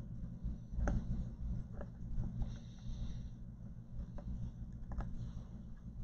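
A few light clicks and taps, like small parts or tools being handled, over a steady low hum.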